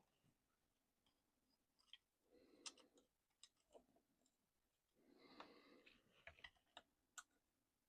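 Near silence with a few faint clicks and soft handling noises, as small parts and tools are handled while an RC truck is taken apart.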